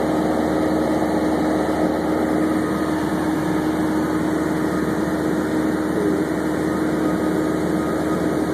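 Cessna 172's piston engine and propeller running steadily in flight, heard inside the cabin as an unbroken drone with one steady held tone.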